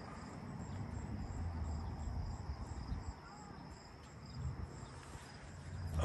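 Crickets chirping, high-pitched pulses repeating evenly about two to three times a second, over a low uneven rumble.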